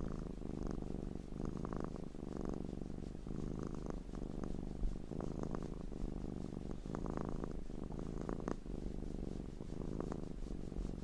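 Domestic cat purring: a continuous low rumble that swells and eases in a slow, repeating rhythm.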